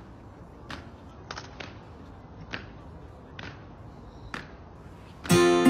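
Marching soldiers' boots striking stone paving in step, as sharp stamps about once a second over faint outdoor background. Near the end, strummed acoustic guitar music cuts in loudly.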